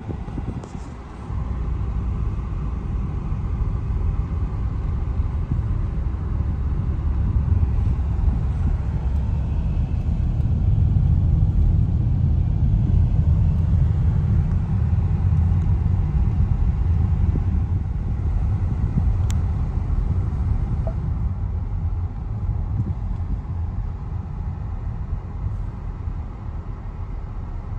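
Low, steady rumble of a car driving, heard from inside the cabin: tyre and engine noise that grows louder through the middle and eases off near the end.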